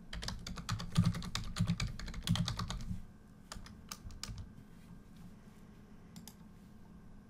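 Typing on a computer keyboard: a quick run of keystrokes for about three seconds, then a few scattered key presses and clicks.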